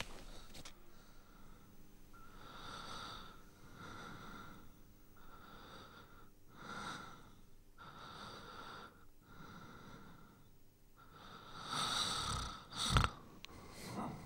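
A person breathing heavily and wheezily, one breath about every second with a faint whistling tone, and a louder sudden noise about a second before the end.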